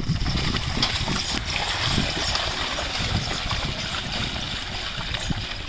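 A pair of bullocks' hooves and a loaded bullock cart's wheels splashing and sloshing through the wet mud of a flooded paddy field: a steady watery churning with irregular low knocks.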